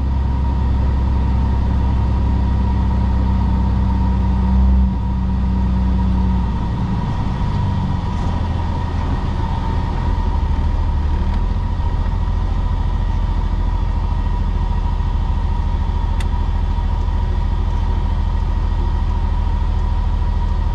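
Cummins ISM inline-six diesel of a Freightliner FLD 112 semi, heard from inside the cab while driving. Its steady low note changes about five to seven seconds in and settles into a rougher, lower running sound.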